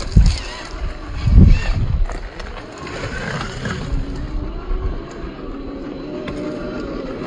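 Electric motor and geared drivetrain of a Traxxas TRX-4 RC rock crawler whining under load, its pitch wavering up and down with the throttle. Two low thumps come in the first two seconds.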